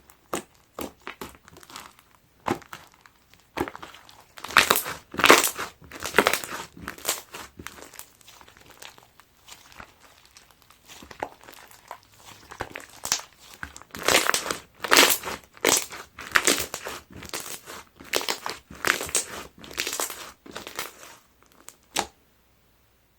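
Clear slime mixed with foam beads being squeezed and pressed by hand: irregular crackling and crunching of the beads, coming in clusters, and stopping shortly before the end.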